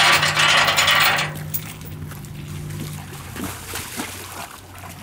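Water splashing loudly for about a second as a person wades into a muddy canal, then quieter sloshing and trickling. A low steady hum runs underneath until about halfway.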